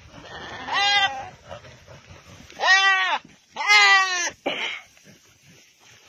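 A goat bleating loudly three times, long wavering cries one to two seconds apart, from goats tangled together with one caught by the scrotum on the other's horns.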